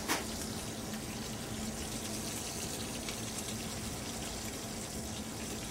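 Swordfish steak and shrimp sizzling steadily as they sear in hot shrimp oil in a pan.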